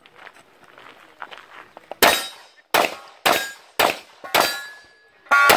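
A string of handgun shots, about one every half second, starting about two seconds in. After the last shots steel targets are heard ringing.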